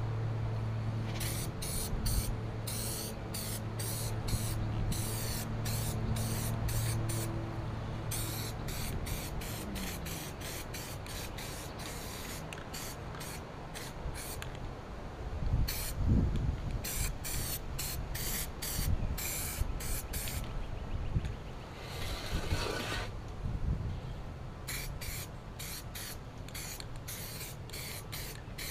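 Aerosol spray paint can spraying in many short hissing bursts, with one longer pass about 22 seconds in. A low steady hum underneath winds down and stops about nine seconds in.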